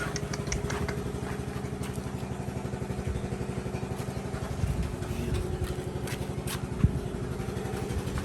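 A small engine running steadily with a fast, even putter, with a few light clicks near the start and one sharp knock about 7 seconds in.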